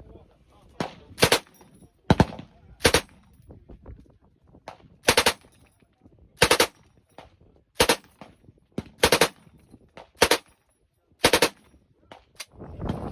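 Gun fired on full auto in short bursts, about nine of them roughly a second apart, with a few fainter single reports between.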